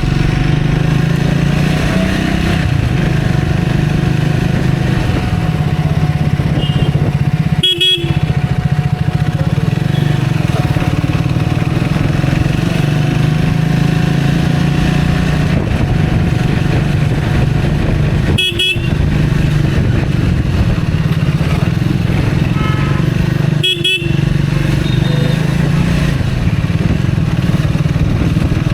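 Motorcycle engine running steadily in traffic, with short vehicle horn toots now and then.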